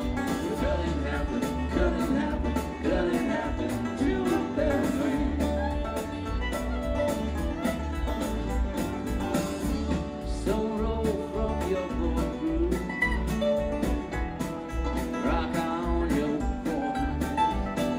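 Background music: a bluegrass-style song with a singer and guitar over a steady bass beat.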